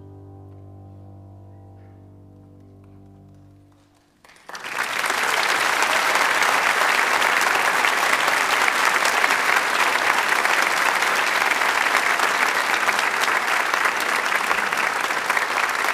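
A final grand piano chord is held and fades away over about four seconds. Then audience applause starts suddenly and continues loudly.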